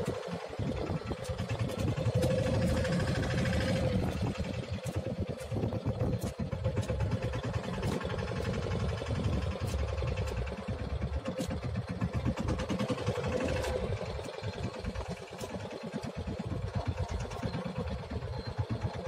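A fishing boat's engine running steadily, with a fast throbbing beat and scattered sharp clicks.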